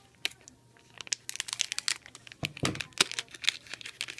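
Plastic film wrapper of a Glico Caplico Mini cone snack crinkling and crackling as it is handled and torn open at the end. The crackling is densest and loudest about two and a half to three and a half seconds in, with a soft bump among it.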